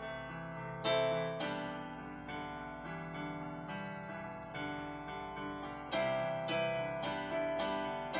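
Digital piano played through PA speakers: sustained chords that slowly fade, with new chords struck harder about a second in and again about six seconds in.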